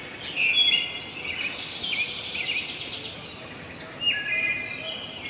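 Squirrel calling: a run of high, rapid chirping calls, louder near the start and again about four seconds in.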